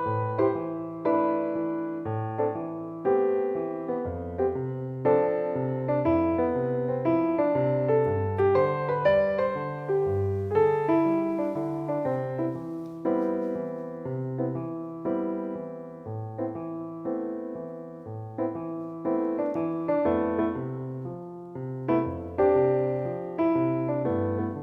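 Background piano music with a steady, even rhythm of notes over a repeating bass line.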